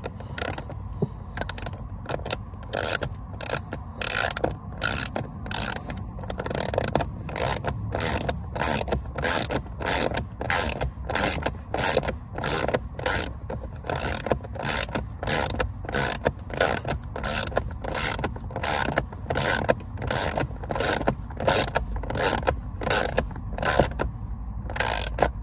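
An 8 mm ratcheting wrench clicking in steady back-and-forth strokes, about two clicks a second, as it drives self-tapping screws into a blower motor's mounting flange.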